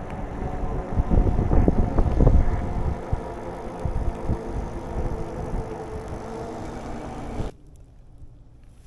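Wind and road noise from riding an electric bike on a paved trail, an uneven low rush that gusts loudest about one to two seconds in. Near the end it drops abruptly to a quiet hush.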